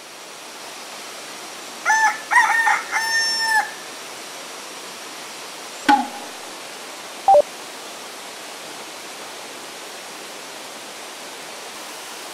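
A rooster crows once, about two seconds in, in a few short notes ending on one long held note, over the steady rush of river rapids. A sharp click follows about six seconds in, and a brief loud knock just after seven.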